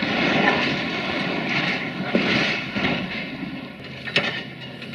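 Concrete and brick rubble crashing and sliding down as a CASE CX330 excavator pulls down part of a building, over the excavator's engine. The crashing is loudest in the first three seconds, with a single sharp knock of debris about four seconds in.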